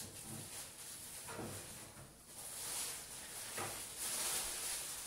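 A gloved hand mixing and squeezing a damp, crumbly bran and coconut dough in a plastic bowl: faint rustling and scraping against the bowl, with a few soft swells.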